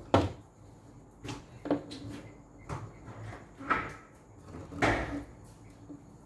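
Short knocks and rustles of a tape measure and scissors being handled on a tabletop while measuring fabric, about six separate sounds at irregular intervals.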